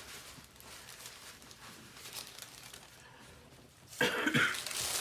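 Quiet eating sounds, with faint chewing and a little wrapper rustle. About four seconds in comes a sudden loud cough, lasting about a second.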